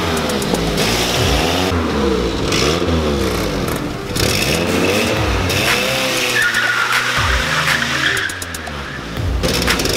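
VW Lupo's swapped-in 1.8-litre turbo four-cylinder engine revving up and down again and again while the front tyres spin in a burnout. A tyre squeal rises high over the engine for about a second and a half past the middle.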